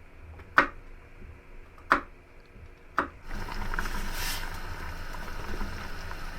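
Three sharp knocks about a second apart, then a steady rushing noise starts just after three seconds in and runs on.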